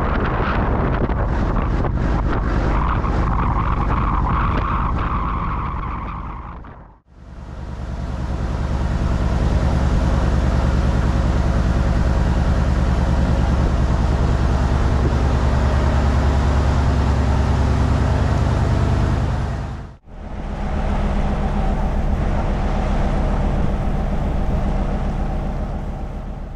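Engine of a wooden river boat running steadily under way, with water rushing past the hull. Wind buffets the microphone in the first part, and the sound breaks off briefly twice.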